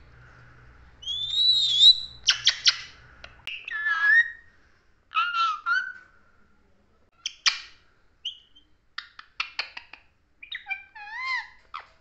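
Rose-ringed (Indian ringneck) parakeet giving a series of short whistled calls and chirps that glide up and down in pitch, with sharp clicks in between. The calls come in several bursts separated by short pauses.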